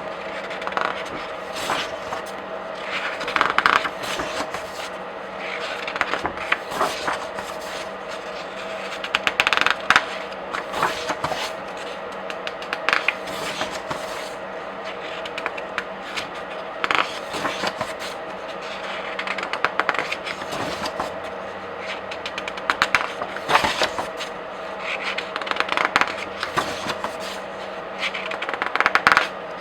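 Pages of comic books and graphic novels being turned by hand: a papery swish and crackle roughly every three or four seconds, with quicker riffling flicks in between. A faint steady hum runs underneath.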